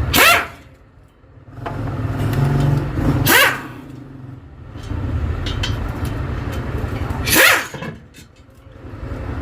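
Three short bursts of a pneumatic tool, each spinning up and down in pitch with a loud hiss of air, as the bolts of a bus differential cover are run out, over a steady low mechanical drone.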